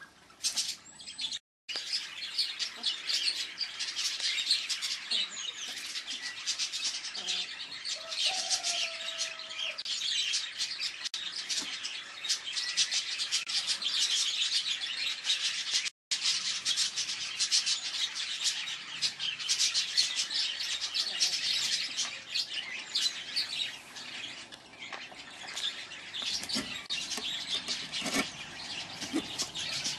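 Small birds chirping and twittering continuously in a dense chorus of short, high calls, cutting out completely for a moment twice, about a second and a half in and about halfway through.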